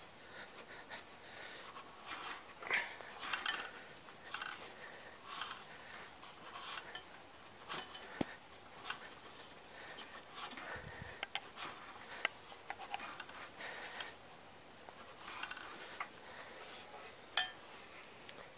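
Small engine turned over slowly by hand at its flywheel screen, with faint scattered clicks, rubbing and short puffs, and one sharper click near the end. On one cylinder air can be heard escaping from the crankcase breather tube as it turns, a sign the owner takes for an engine problem.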